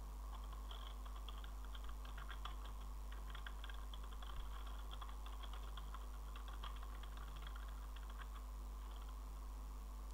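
Computer keyboard typing: a quick run of faint keystrokes that stops about nine seconds in, over a steady low hum.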